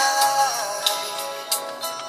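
Music playing on the car stereo, heard inside the car's cabin: a melody with a falling slide in pitch about half a second in, over sharp percussive hits.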